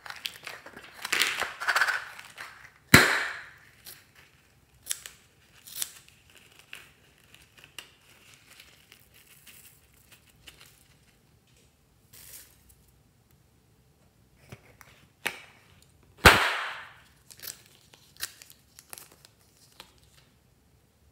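Scissors cutting open balloons stuffed with confetti, with two sharp snaps as the stretched rubber gives way, about three seconds in and again about sixteen seconds in. Between them come crinkling and rustling of sequins and foil confetti being handled, and small clicks.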